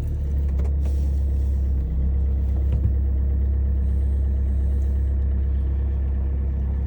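Car engine idling steadily just after a cold start in sub-zero weather, a constant low hum.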